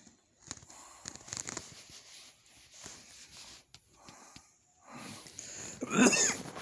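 A person's dry cough: short rough, wheezy breaths and throat sounds, then a louder cough near the end.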